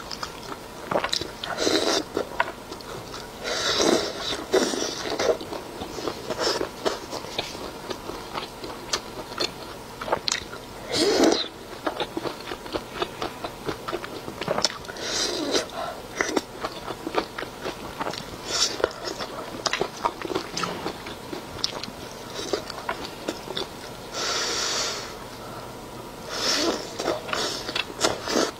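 Close-miked wet chewing and biting of spicy cold-pot skewers, with many small sharp mouth clicks and several louder bursts of mouth noise.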